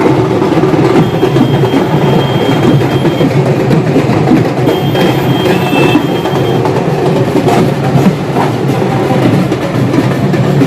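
Dhak, the large Bengali barrel drums, beaten with sticks in a fast, dense, continuous rhythm.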